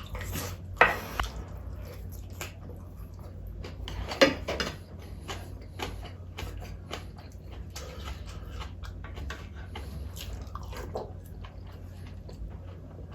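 Close-miked eating sounds: wet mouth smacks and chewing with small utensil clicks, and two louder knocks about a second in and about four seconds in, over a steady low hum.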